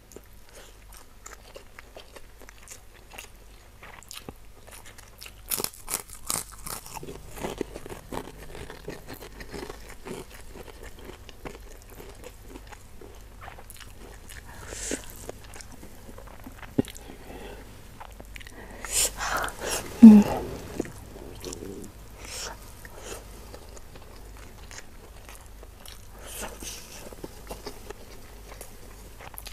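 Close-miked eating of spicy beef and rice taken by hand: wet chewing and mouth smacks, with some crunching of kerupuk crackers. A short hum-like sound is heard about twenty seconds in.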